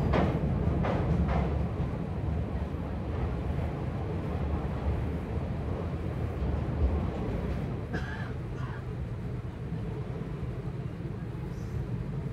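Passenger train coach running at speed, heard from a coach window: a steady low rumble of wheels on the rails as it crosses a steel truss bridge.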